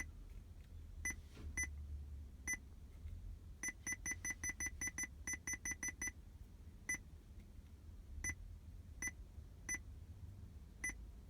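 Joying Android car head unit's touchscreen key beeps, one short high beep per tap. Single beeps come a second or so apart, with a quick run of about a dozen at roughly five a second in the middle, as its settings menu is tapped through.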